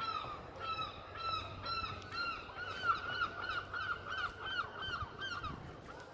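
A gull giving its long call: a run of repeated yelping calls that start at about two a second, quicken to about three a second, and stop a little before the end.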